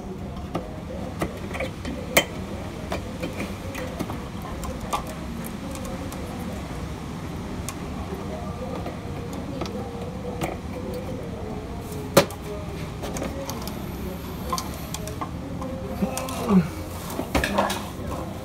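Scattered clicks and light knocks of hands and tools working on a car's underside, the loudest a sharp knock about twelve seconds in, over a steady low hum.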